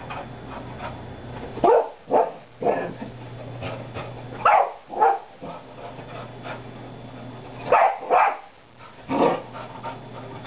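A dog barking, about seven short barks mostly in pairs, over a faint steady low hum.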